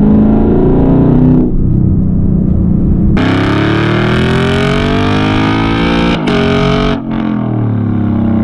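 Lexus LC 500's 5.0-litre naturally aspirated V8 through a loud custom aftermarket exhaust, accelerating. It is first heard from inside the cabin, then close at the exhaust tips, where the note climbs steadily in pitch for about three seconds. There is a brief break about six seconds in, as the transmission upshifts, and the engine then settles to a steadier, lower note.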